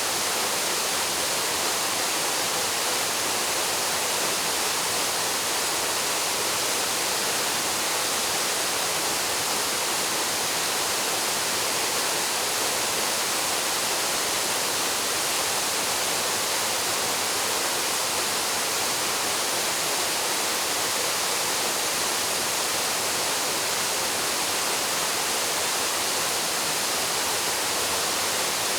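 Paraeso Falls, a mountain waterfall, pouring steadily into its pool: an even, unbroken rush of falling water, strongest in the high hiss.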